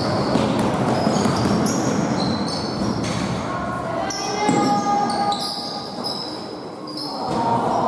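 Basketball game in a sports hall: the ball bouncing on the court amid short high squeaks and players' voices, with the echo of a large hall.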